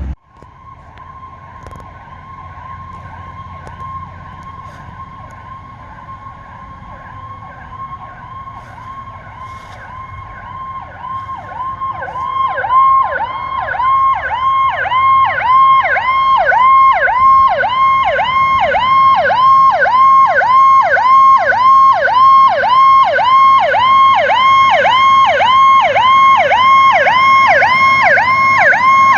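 Electronic emergency-vehicle siren on a rapid yelp, about two quick pitch sweeps a second. It starts faint under a steady siren tone and grows loud about twelve seconds in as the vehicle closes in.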